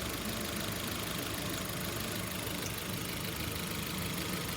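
Hyundai HB20 engine idling with a noise from its accessory drive belt, still cold. The mechanic puts it down to a worn belt tensioner that has lost its internal spring pressure and no longer keeps the belt fully taut; the noise fades as the engine warms.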